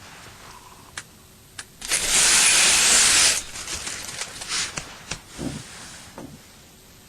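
Two sharp clicks, then a loud hiss that lasts about a second and a half and stops abruptly, followed by a few softer rustles and knocks.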